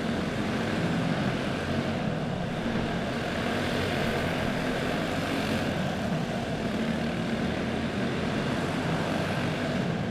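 Several racing karts with single-cylinder OHV clone engines running together at race speed, a steady overlapping engine drone inside a large hall.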